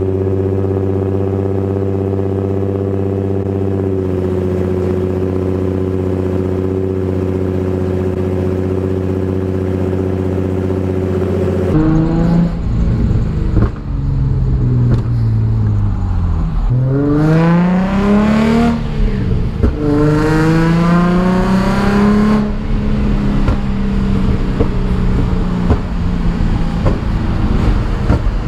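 Nissan 350Z's 3.5-litre V6 idling steadily. About twelve seconds in, heard from inside the cabin, the car pulls away: revs climb, drop at a gear change, climb again, then hold steady at cruise.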